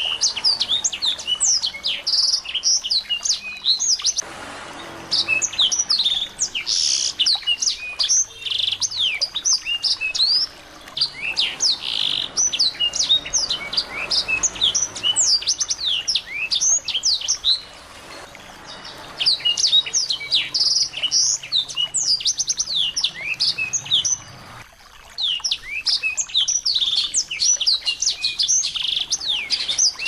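Small songbirds chirping and twittering in quick, dense runs of high, down-slurred notes, broken by short pauses every few seconds.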